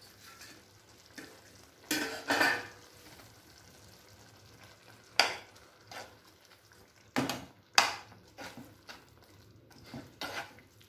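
A steel ladle stirring a thick cashew curry in a frying pan, scraping and clinking against the pan in a string of short, irregular strokes, over the faint sizzle of the simmering curry.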